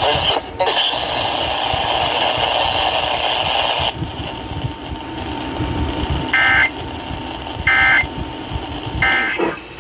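A steady hiss of radio static for about four seconds, then three short buzzy bursts of EAS end-of-message data tones, evenly spaced about a second and a half apart. They are the digital code that marks the close of an emergency alert.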